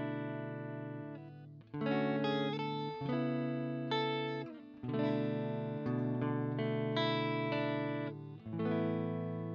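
Electric guitar chords played through a Friedman Runt 20 amplifier's cab-simulated direct output, heard as a recording played back. The chords ring out and change every second or so, with brief breaks between phrases.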